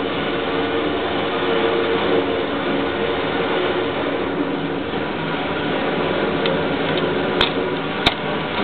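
Steady mechanical whir and hum of indoor range machinery as a target carrier runs a paper target downrange, with two sharp clicks near the end.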